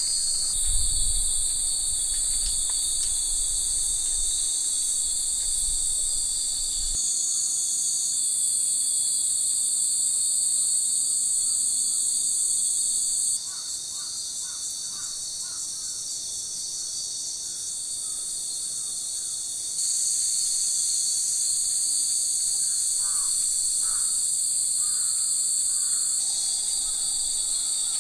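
Dense summer chorus of cicadas buzzing steadily and high-pitched. It drops in level for several seconds a little before the middle, then comes back. A few faint short calls sound over it a little past the middle and again near the end.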